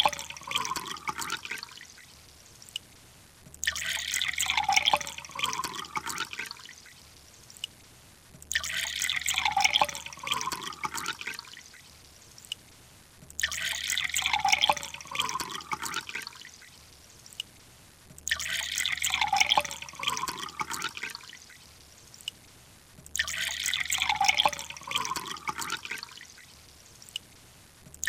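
Water pouring and splashing in bursts of about two to three seconds that repeat every five seconds or so, the same sequence looped, with faint drips in the gaps between.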